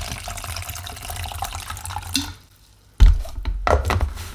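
Water pouring from a plastic bottle into a plastic shaker cup of protein powder for about two seconds. After a short gap, several loud knocks and thumps from the capped shaker cup.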